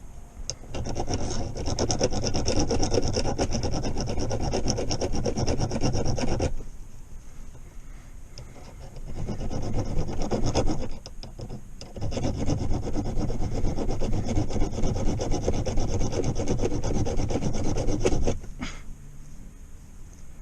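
Rapid back-and-forth hand rubbing on the chrome gear-shifter part, polishing off black marks. It comes in three long bouts: a long run, a short one about halfway, and another long run that stops shortly before the end.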